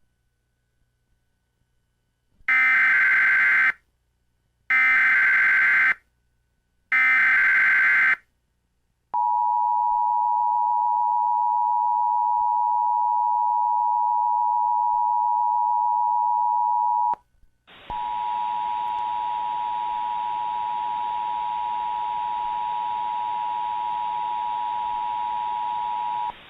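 Emergency Alert System signal: three short bursts of digital header data about a second apart, then the two-tone attention signal held steady for about eight seconds. After a brief break the attention tone returns for about eight more seconds with a hiss under it.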